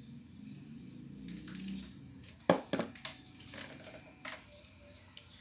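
Faint handling noise as a model screw conveyor blade is moved over a paper drawing: low rustling, then a few light clicks and knocks, the sharpest about two and a half seconds in.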